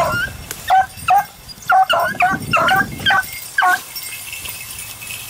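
Pack of beagles barking on a rabbit's scent trail, a run of about eight short, high barks that stops near four seconds in. The hounds are back on the rabbit's track.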